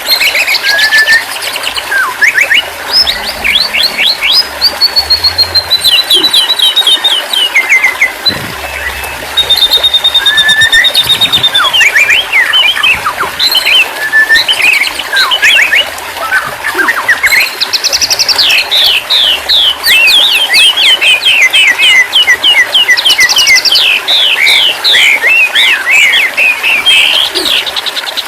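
White-rumped shama singing a long, varied song of clear whistles, fast trills and rattling phrases, running on with barely a pause.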